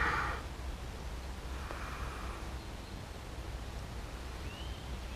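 A brief rustle at the start as a large common carp is shifted in the angler's hands, then a quiet outdoor background with a steady low rumble, a fainter rustle about two seconds in, and a few faint short chirps near the end.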